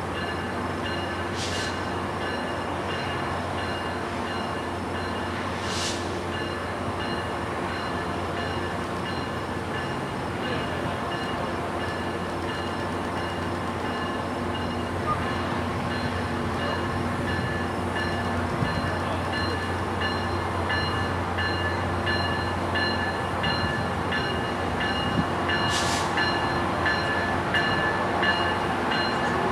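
Diesel locomotive of a Brookville BL20GHM-led test train approaching slowly, a steady engine hum that grows gradually louder.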